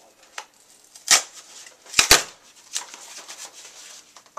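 DVD packaging being torn and wrestled open by hand, with irregular crackles and two sharp snaps close together about two seconds in.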